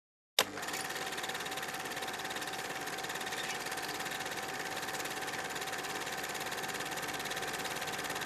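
A sharp click about half a second in, then a small machine running steadily with a fast, fine rattle and a steady whine.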